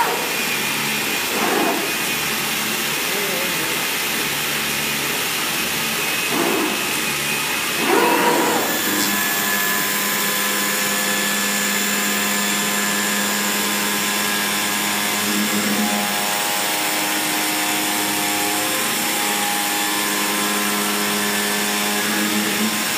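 CNC flatbed cutting machine running: a steady mechanical hiss with motor whine as the gantry and cutting head travel over the table. About eight or nine seconds in the sound changes and several steady whining tones come in over the hiss.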